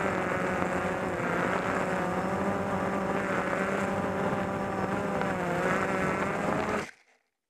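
Small camera drone's electric motors and propellers whining, several pitches wavering up and down together, then stopping abruptly near the end.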